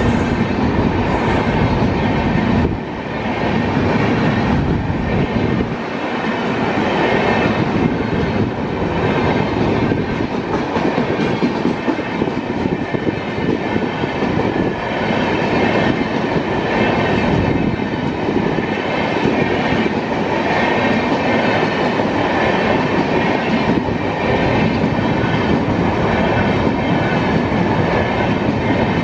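Express passenger train's coaches running past close by, their wheels on the rails making a loud, steady rush.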